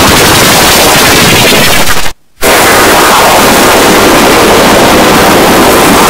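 Loud, dense noise spread across all pitches, made by converting a fractal or photograph into sound with Photosounder. It cuts out suddenly for about a quarter second a little after two seconds in, then resumes.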